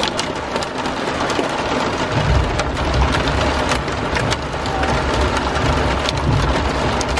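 Hail and heavy rain pelting a minivan's roof and windshield, heard from inside the cabin as a dense patter with many sharp ticks of hailstones. A low rumble joins underneath from about two seconds in.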